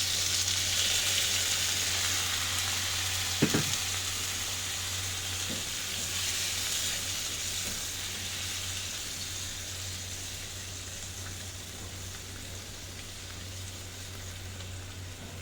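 Chopped tomatoes sizzling in a frying pan just after a little water has been added, a steady hiss that slowly dies down as the water heats. One sharp knock about three and a half seconds in.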